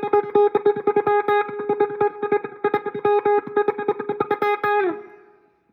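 Guitar picking one repeated A-flat note in quick, short chicken-pickin' plucks, rocking between thumb and index finger in shifting rhythms. Near the end the note slides down in pitch and fades out.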